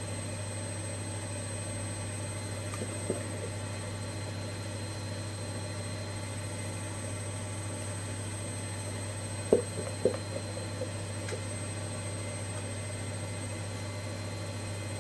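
Washing machine on its spin cycle, a steady drone throughout. A spatula knocks sharply against a stainless steel mixing bowl once about three seconds in and twice, more loudly, between nine and ten seconds in, while batter is scraped into cake tins.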